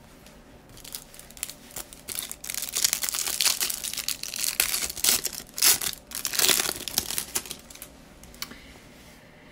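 Hands tearing open the cellophane wrapper of a Panini Prizm basketball card cello pack. The wrapper crackles in a run of quick bursts that die away about seven and a half seconds in.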